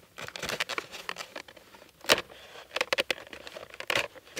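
A dry stick scraping and clicking as it is pushed through the bottom of a birch bark basket, with the bark crackling and rustling; one sharp click about two seconds in.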